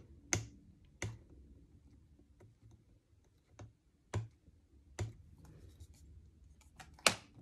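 Clear plastic stamp-set case being handled and slid into place on a stamping tool, giving a handful of sharp plastic clicks and taps spread over several seconds, the loudest near the end.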